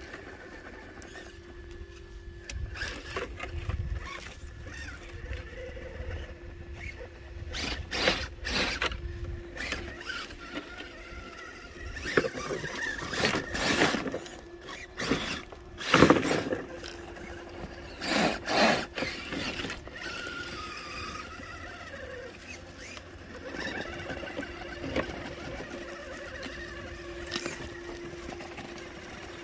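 Brushless electric drive of an RC rock crawler (Hobbywing Xerun AXE motor and ESC) whining steadily as it crawls up a dirt bank. Several loud bursts of tires scrabbling and the body scraping on dirt and rock come in the middle.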